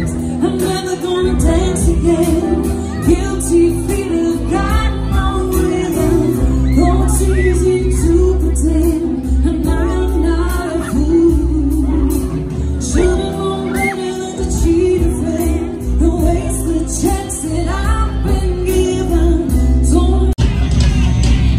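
Live band playing: a female lead singer over electric guitars, bass and drums, heard from the audience. There is a brief dropout near the end.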